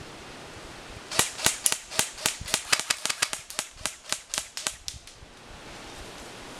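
Airsoft gun firing a rapid string of about twenty sharp shots, about five a second. The string starts a little over a second in and stops about five seconds in.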